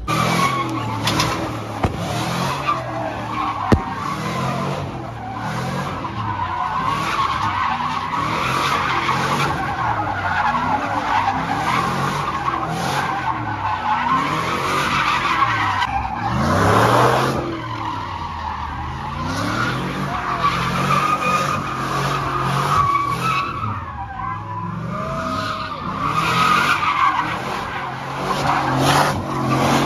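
Chevrolet Silverado pickup doing donuts, its engine revving up and down while the tires squeal continuously on the pavement. A single sharp bang cuts through about four seconds in.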